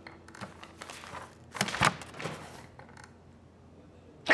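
Faint scattered clicks and rustling, with a louder thump about a second and a half in and a sudden loud noise right at the end.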